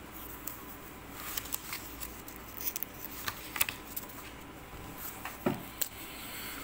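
Sheets of paper being handled on a desk: scattered light rustles and small ticks as a written page is moved aside and a blank sheet laid down.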